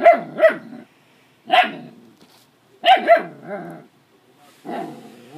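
Nine-week-old puppy barking at a broom she feels threatened by. There are five short, sharp barks, mostly in quick pairs, then a longer, lower bark near the end.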